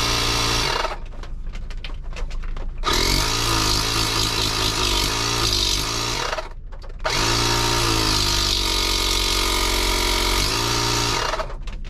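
ShockFlo cordless portable tire inflator's small electric motor and piston pump running with no tire attached. It runs in three loud spells, stopping about a second in, running again from about three to six and a half seconds, and again from about seven seconds until near the end, its pitch dipping as it starts and stops.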